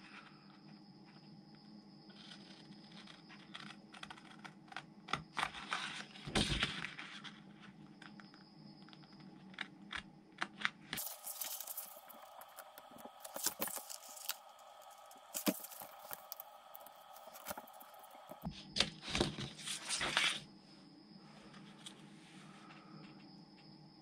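Scissors snipping around stickers on a plastic decal sheet, with the sheet crinkling as it is handled: an irregular scatter of short snips and rustles.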